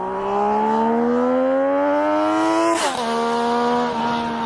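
An engine accelerating hard, its pitch rising steadily; about three seconds in it shifts up with a short crack and the pitch drops, then it pulls again at the lower pitch.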